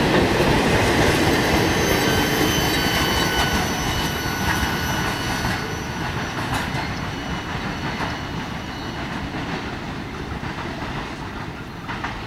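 Freight wagons rolling past on the rails, with a thin, steady wheel squeal between about two and five seconds in. The rolling noise fades steadily as the end of the train moves away.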